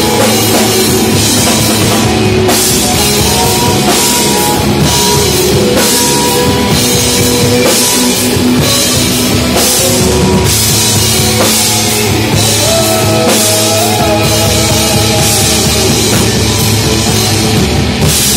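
A live rock band playing loudly: electric guitars over a drum kit.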